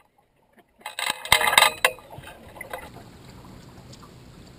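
A short flurry of knocks and splashing in a small aluminium fishing boat about a second in, then a faint, steady hiss of outdoor ambience.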